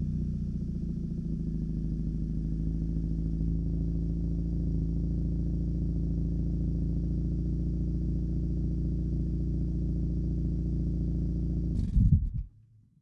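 A Mitsubishi sedan's engine idling steadily, then a brief loud burst near the end, after which the sound cuts out quickly.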